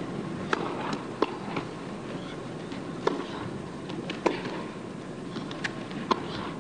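Tennis serve and rally on an indoor hard court: sharp knocks of the ball off racquets and court, about six, one to two seconds apart, over a low steady murmur from the arena.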